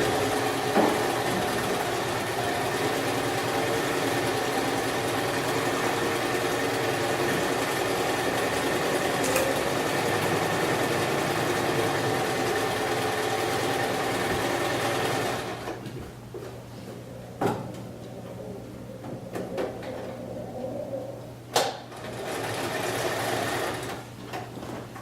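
Electric sewing machine running steadily for about fifteen seconds, then stopping abruptly. A few sharp clicks and knocks follow.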